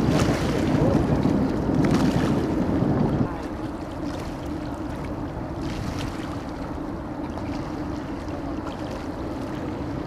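Boat motor humming steadily with water rushing and wind buffeting the microphone. The rushing is louder for the first three seconds, then drops suddenly to a steadier hum.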